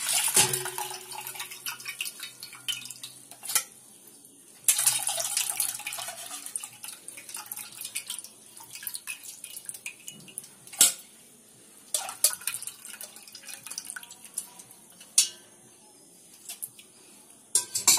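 Cooked tomato rasam poured from a steel vessel through a wire-mesh strainer into a steel pot: liquid splashing and dripping, loudest near the start and again around five seconds in. Several sharp metallic clinks of the strainer and steel vessels come in between.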